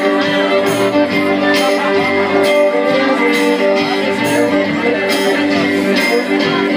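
Live band playing a song with a steady beat and held notes.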